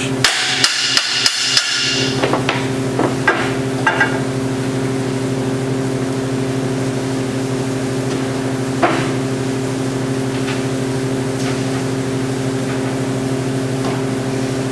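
A hammer strikes steel five times in quick, even succession, each blow ringing, then a few lighter metal knocks follow. A steady low hum runs underneath.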